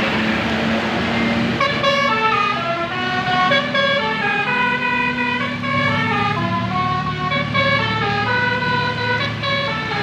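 Bus 'telolet' Basuri multi-tone horn playing a stepped, tune-like run of notes, starting about one and a half seconds in and repeating, over a bus engine's low hum.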